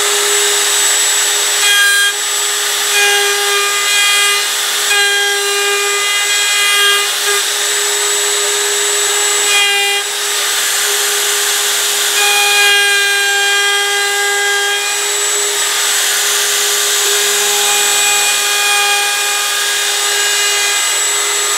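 DeWalt router running at full speed with a steady high whine, its bit biting into oak in several stretches of louder cutting noise. It is routing the lower half of a rounded corner on a 1.25-inch-thick oak tabletop, following the already-routed upper half as its guide.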